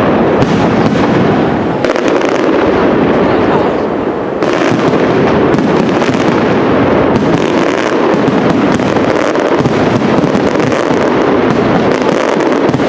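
Aerial firework shells bursting in a dense, continuous barrage, a steady wall of densely packed bangs and crackle with no pauses.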